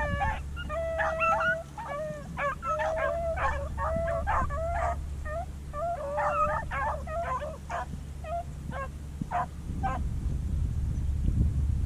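Beagles baying on a rabbit's trail: a run of howling and yelping cries, some held, most short and overlapping, thinning out and stopping near the end, over a steady low rumble.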